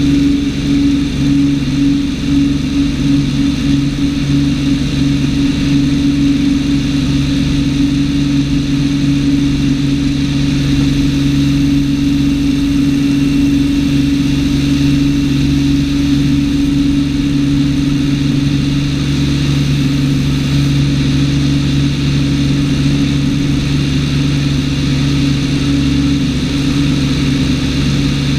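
Cessna 210's six-cylinder piston engine and propeller running at takeoff power through the end of the takeoff roll and the climb-out: a loud, steady drone with airflow hiss.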